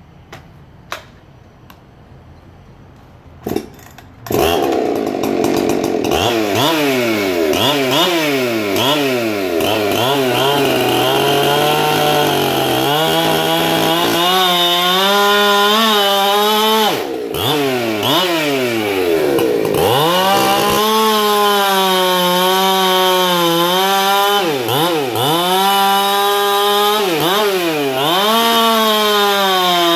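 Ported, decked Husqvarna X-Torque two-stroke chainsaw with a 20-inch bar cutting down through a knotty block of kiln-dried fir. It goes to full throttle about four seconds in, after a couple of faint clicks, and its engine note dips and recovers again and again as the chain loads up in the wood.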